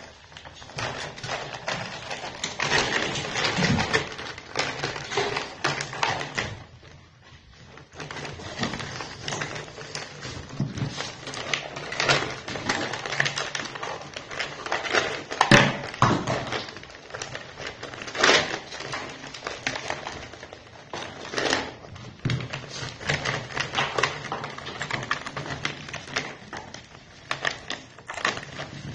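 Ice cubes clinking and knocking against each other and a plastic basin as raccoons paw through them: a rapid, irregular clatter with a brief lull about seven seconds in.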